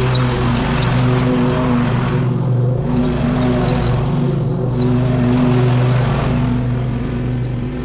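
Small petrol engine of yard equipment running steadily at working speed, with a slight rise and fall in its hiss.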